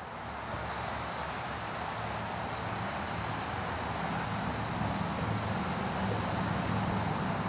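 Crickets chirping in a steady, continuous high-pitched chorus over a low background hum, fading in at the start.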